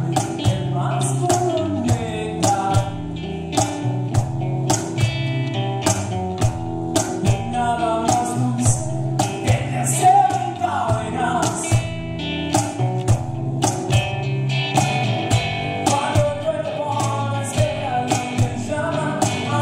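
Live band playing a rock song: electric bass, a cajón keeping a steady beat, and strummed acoustic guitar, with a male lead vocal sung into the microphone.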